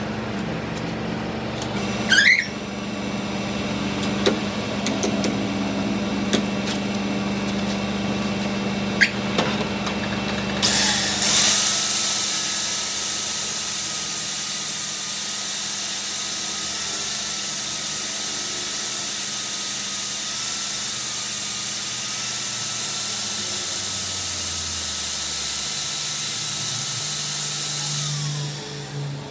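A low machine hum with scattered clicks and knocks, then about eleven seconds in a handheld power tool starts up and runs steadily with a high whine and hiss, winding down shortly before the end.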